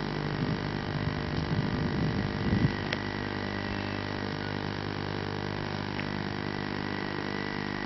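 Steady drone of a moving car's engine and road noise, with low rumbling in the first three seconds and a sharp click about three seconds in.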